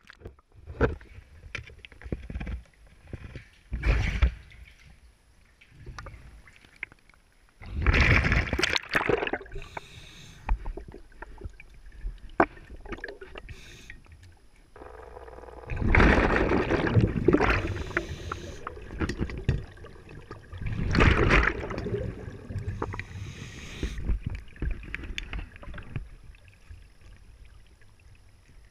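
Underwater sound of a scuba diver's breathing in a flooded cave: several loud bursts of exhaled bubbles a few seconds apart, with quieter hiss between them and scattered clicks and knocks of gear.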